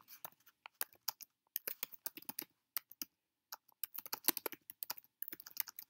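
Typing on a computer keyboard: quick, irregular keystrokes, with a short pause about halfway through.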